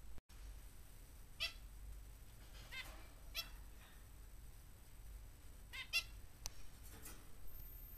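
Small finches giving short, faint nasal calls: single calls spaced a second or so apart, then two in quick succession near the six-second mark.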